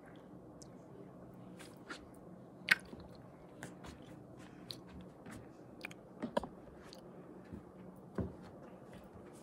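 Faint steady hum of a quiet room, with scattered soft clicks and taps and one sharper click just under three seconds in.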